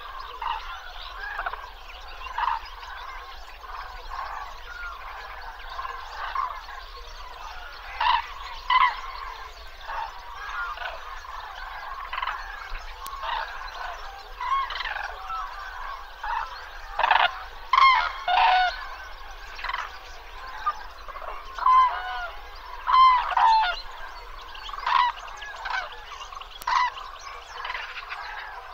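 A flock of birds calling, many short calls overlapping without pause, with louder bunches of calls standing out about a third of the way in, a little past the middle and around three quarters of the way through.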